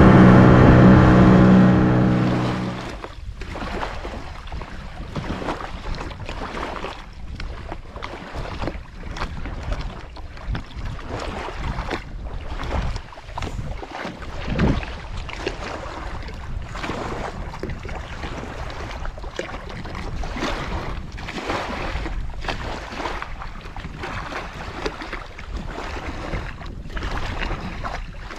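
A loud steady drone cuts away about two seconds in. After that, wind buffets the microphone over sea water lapping and splashing, in uneven gusts.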